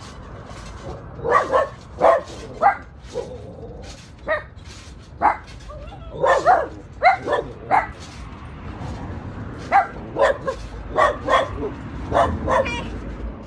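Small dog barking in short, sharp yaps, coming singly and in quick clusters with pauses between.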